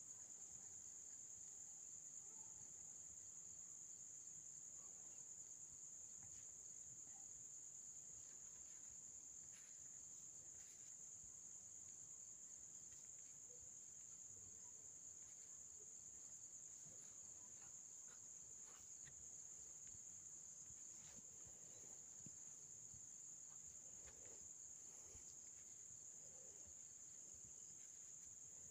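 Near silence, with one faint steady high-pitched whine holding throughout and a few faint scattered ticks.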